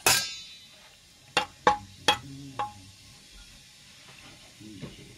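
Metal clinking on a metal frying pan: one ringing clang at the start, then three sharp taps about one and a half to two seconds in and a lighter one just after.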